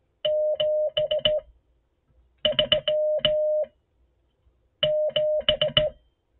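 Morse code sent by hand on a straight key: a steady mid-pitched sidetone beeping in short and long elements, each element marked by the key's contact clicks. The code comes in three runs of characters, about a second apart.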